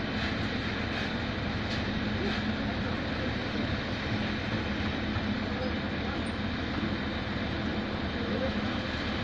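Drop-hammer pile-driving machine's engine running steadily, with faint evenly spaced ticks in the first two seconds.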